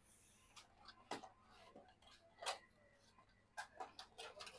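Faint, scattered small clicks and taps, about four, from PC case cables and their small connectors being handled while they are fitted inside the computer case.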